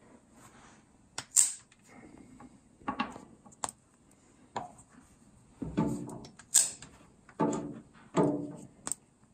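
Hand-held hole punch pliers clicking as they are squeezed and twisted through BioThane coated webbing, punching holes for a dog collar: a series of sharp clicks, with three short squeaky sounds in the second half as the punch is twisted through the strap.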